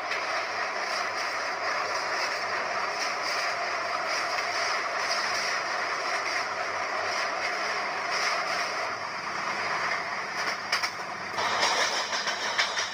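A train running on the track, heard from aboard the moving train while it crosses a steel truss bridge: a steady rumble and rattle of wheels and coaches. Near the end the sound changes and a few sharp clacks come in.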